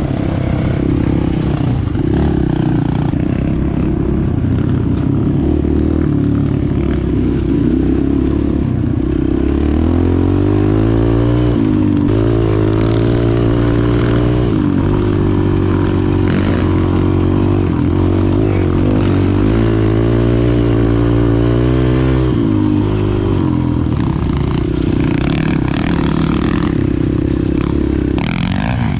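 Dirt bike engine under the rider, running along a gravel trail. The revs climb about a third of the way in, hold steady, drop back about three quarters of the way through, and pick up again near the end.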